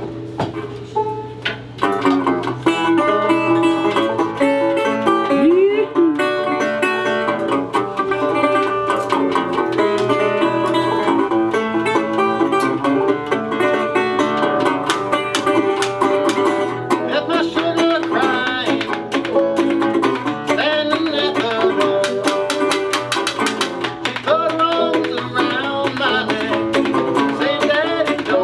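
Live acoustic string band: banjo and resonator guitar playing together, with washboard percussion scraped and struck in a quick rhythm, joining about two seconds in.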